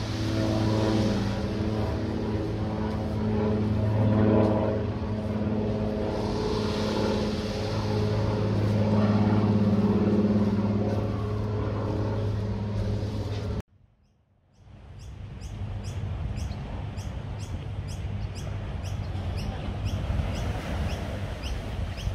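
A steady engine drone, a low hum with a ladder of overtones that swells and fades, cut off suddenly about two-thirds through. After a short gap comes an outdoor hiss with a quick, even run of high chirps, about two or three a second.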